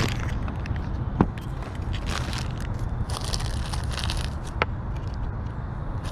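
Rustling and crunching of items being handled and packed away, with two sharp knocks, one about a second in and one near the end.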